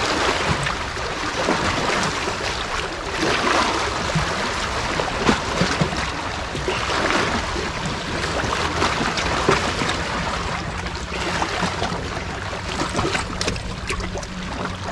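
Small sea waves lapping and sloshing against shoreline rocks, the wash swelling and easing every few seconds.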